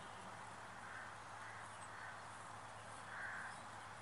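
Faint distant bird calls, a few short ones, the clearest about three seconds in, over a quiet open-air background with a low steady hum.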